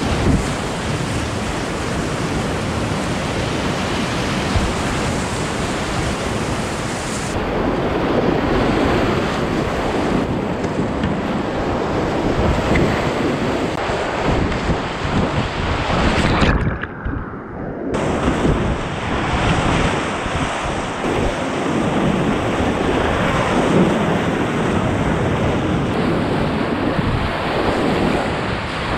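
Whitewater rapids rushing loudly around a kayak, with splashing from the paddle strokes, heard from close on the water. About halfway through the sound goes muffled for a second before the rushing returns.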